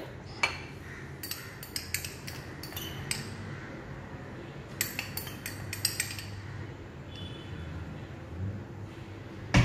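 A metal knife clinking and tapping against ceramic dishes: a bowl and a ramekin. It comes as a series of short, light clicks, bunched in the first six seconds and sparser after.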